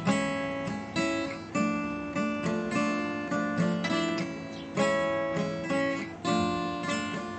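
Solo acoustic guitar: chords strummed about twice a second, each left to ring, with no singing.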